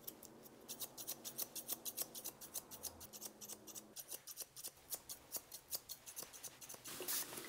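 Grooming shears snipping through a small dog's facial fur in quick, regular cuts, several a second.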